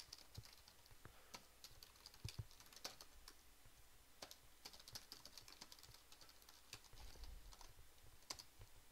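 Faint, irregular typing on a computer keyboard, key clicks coming in uneven runs.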